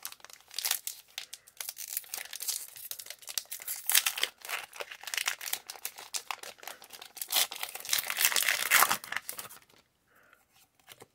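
Foil wrapper of a Pokémon TCG booster pack being torn open and crinkled by hand, a dense crackling that stops near the end.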